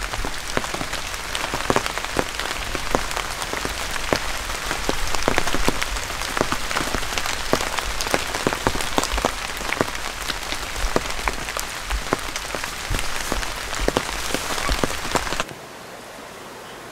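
Steady rain falling, with many separate drops striking close by. It stops abruptly about a second and a half before the end, giving way to a faint steady hiss.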